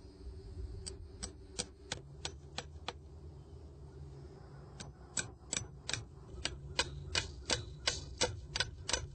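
Hammer driving stainless steel nails with washers into a fence post to fasten an insulator's webbing strap: a few separate taps about a second in, then a steady run of blows, about three a second, from about five seconds in.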